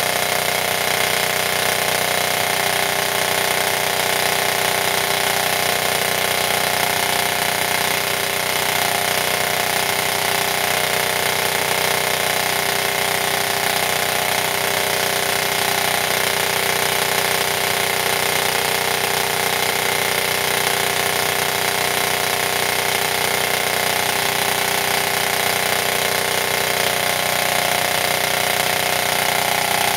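G&G ARP 556 airsoft electric gun firing without pause on full auto, its trigger held down and the gearbox cycling at a steady rate through a sustained stress run.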